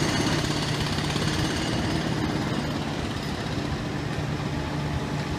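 Utility truck engine idling, a steady low hum with a rattly edge.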